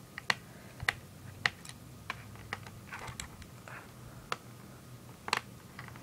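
Screwdriver turning out a small screw in a laptop's plastic underside, giving sharp, irregular clicks about every half second to a second, with some faint scraping in between.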